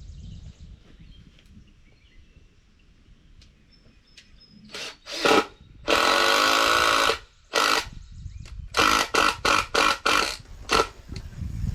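A cordless power drill running in short trigger bursts, with one steady run of about a second, driving screws. The bursts start about five seconds in.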